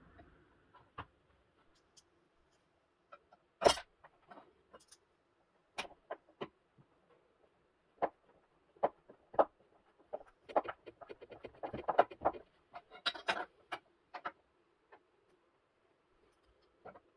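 Scattered clicks and knocks from a steel DIN rail and a screwdriver being handled on a wooden tabletop. One sharp knock comes a few seconds in, and a quick run of small clicks follows about two-thirds of the way through.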